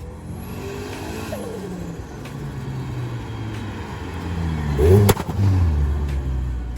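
Chevrolet Corsa pickup's turbocharged 1.6 engine revving, its pitch climbing and dropping twice, loudest about five seconds in, where a sharp crack comes as the revs fall off: the turbo fluttering on throttle lift.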